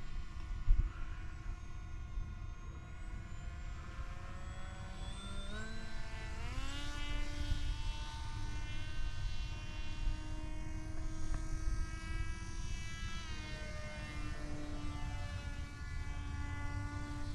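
Electric motor and propeller of a sub-250 g foam RC plane whining in flight, a steady multi-toned whine that climbs in pitch about six seconds in and dips again later on. A low rumble runs underneath.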